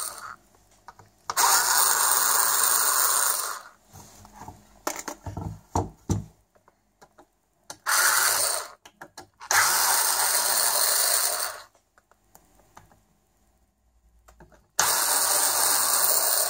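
Cordless electric screwdriver running in four spells of one to two seconds each, backing out the bolts of a radio case. Between the spells there are a few light knocks of the tool and metal.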